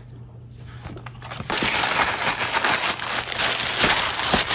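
Tissue paper crinkling and rustling as a package is unwrapped by hand, starting about a second and a half in.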